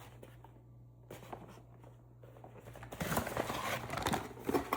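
Packaging being handled and opened: a few faint taps, then about three seconds in a dense rustling with sharp clicks.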